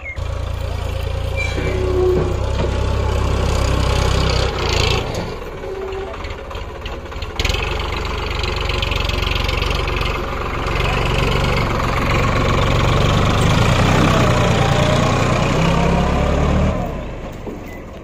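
Heavy diesel engine running under load, revving up and easing off in waves, with one sharp knock about seven seconds in.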